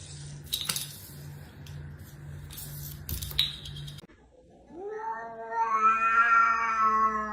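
A cat giving one long, drawn-out yowl that rises at the start and then holds steady, coming in about two-thirds of the way through. Before it there is a steady low hum with a few clicks.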